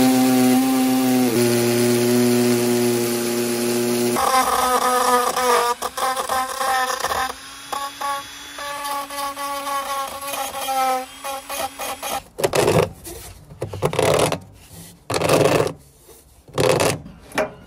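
Electric drill running with a long masonry bit against the brick wall: a steady whine for about the first four seconds, then a wavering pitch that rises and falls as the bit works. In the last few seconds the drilling stops and a run of separate knocks and scrapes follows.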